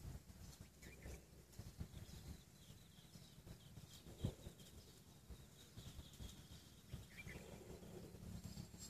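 Near silence: a faint low rumble with a couple of brief, faint bird chirps, one about a second in and one near the end.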